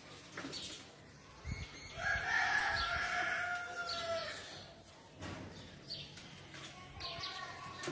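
A rooster crowing once, a single long crow of about two seconds starting about two seconds in and dropping in pitch at its end. A few faint knocks sound around it.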